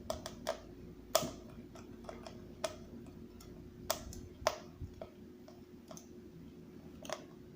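Irregular light clicks and taps of a Phillips screwdriver driving screws that hold a toy animatronic's gearbox into its base.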